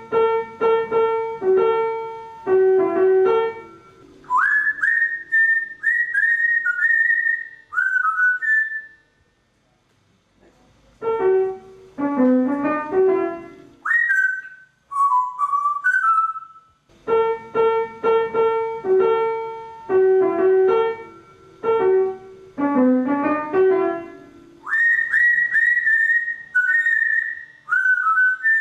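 An African grey parrot whistles back short melodies played on a piano, the two taking turns three times: the piano plays a phrase, then the parrot whistles the same tune, each whistled note swooping up into pitch.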